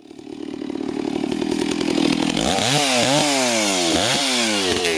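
Two-stroke chainsaw running: a steady engine note fades in, then from about halfway it is revved up and down several times in quick succession.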